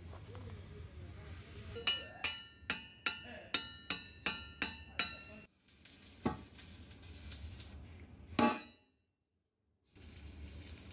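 A hammer striking steel bushes in the eyes of JCB bucket linkage arms. First comes a quick run of about ten ringing metal-on-metal strikes, a little under three a second. Then come two single heavier blows, the last the loudest.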